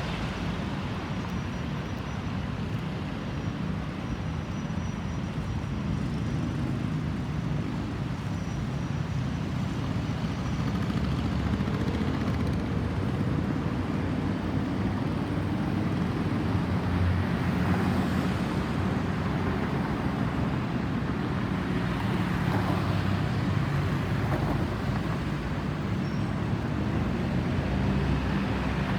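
Steady road traffic noise from passing vehicles, a continuous rumble that grows somewhat louder about ten seconds in; no siren is sounding.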